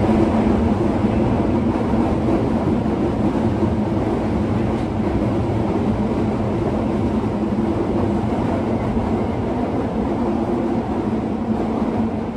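Osaka Metro 22 series subway car running, a steady rumble of wheels and running gear with two steady low hums. The car is one known for its unusual running noise. The sound gets gradually a little quieter.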